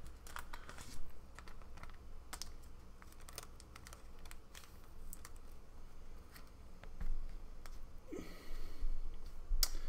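Panini Prizm trading cards being flipped through by hand, with a scatter of light, irregular clicks and slides as each glossy card is moved off the stack.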